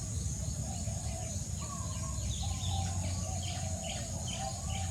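Birds chirping, a string of quick short chirps from about a second and a half in, over a steady high insect drone and a low background rumble.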